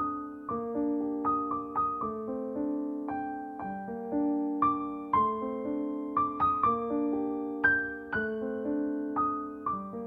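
Piano music: a melody of struck notes that ring and fade, over lower held chords.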